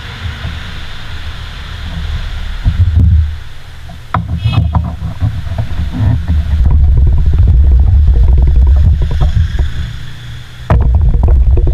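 Wind buffeting the microphone: a loud, gusty low rumble that swells about six and a half seconds in, dips, and comes back suddenly near the end, with a few light knocks of handling partway through.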